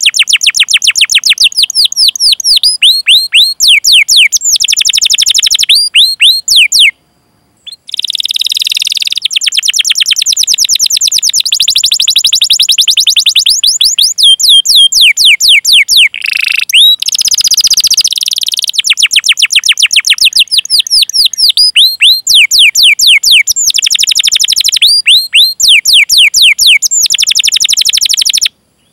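Domestic canary singing long runs of rapid, falling whistled 'cuit-cuit' notes and rolling trills, briefly pausing about seven seconds in.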